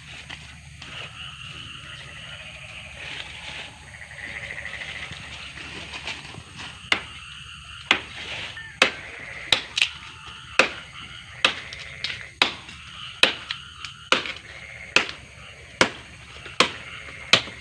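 Sharp chopping strikes, about one a second, starting about seven seconds in: a blade hacking into the wood of a fallen tree trunk. A high trilling sound runs underneath.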